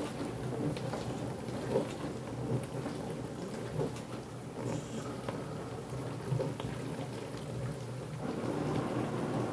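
A potato knocking and rolling on a tiled floor as a cat bats it with its paws: a few scattered thuds over a steady rumbling noise.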